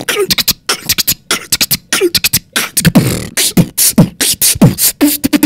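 Outro music with a fast beatbox-style beat: rapid clicks and hissy hi-hat bursts over short, deep kick-drum notes that drop in pitch.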